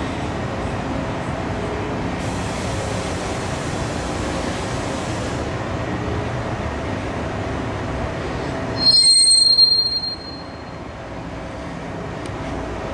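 Scheuchzer Grizzly 104 L rail-grinding train at work on the track, a steady grinding noise over a machine drone, with an extra high hiss for about three seconds starting about two seconds in. About nine seconds in comes a loud, high-pitched squeal lasting about a second, after which the sound gets quieter.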